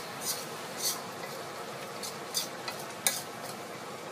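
A spatula stirring pork ribs and rice in water in a hot wok, with a few short sharp scrapes against the pan over a steady sizzle.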